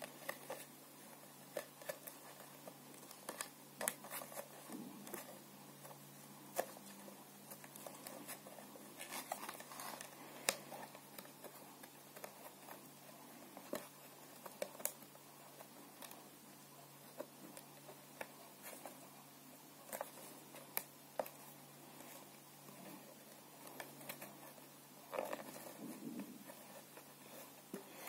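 Hands pushing and working a filter into the end of a plastic PVC pipe: faint, scattered clicks, taps and rubbing of plastic at irregular intervals.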